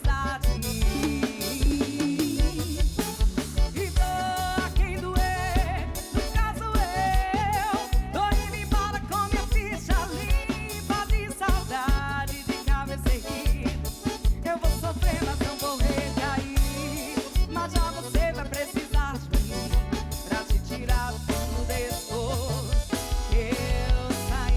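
Live band playing an upbeat passage with a drum kit keeping a steady, driving beat under melodic instrument lines.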